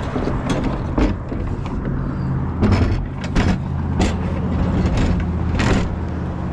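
A motor vehicle engine idling with a steady low hum, with several sharp clicks and knocks scattered through it.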